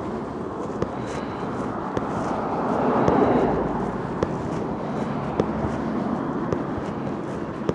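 Walking footsteps, a short tick about once a second, over steady street traffic noise that swells and fades about three seconds in as a vehicle passes.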